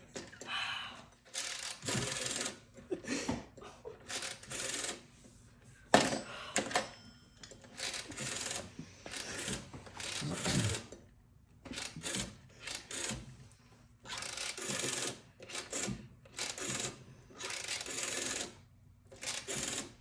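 Rotary telephone dial being wound round and released over and over. Each release is a short whirring run of clicks as the dial springs back, about fourteen runs in all, each under a second with brief pauses between them.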